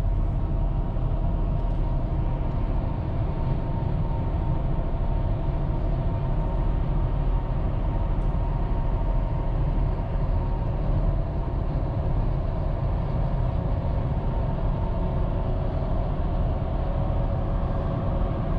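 Steady road noise inside a moving car's cabin: a low tyre and engine rumble with a faint steady hum.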